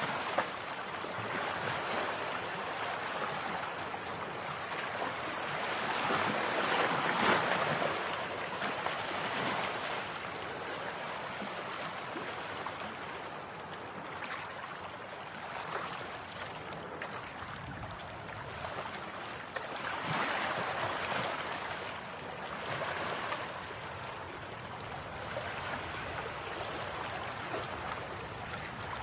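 Sea waves washing in: a steady rushing noise that swells and fades every few seconds.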